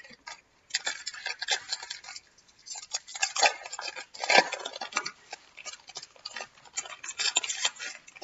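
A foil trading-card pack wrapper crinkling as it is peeled open and the cards inside are handled: irregular crackling and rustling that comes in uneven clusters.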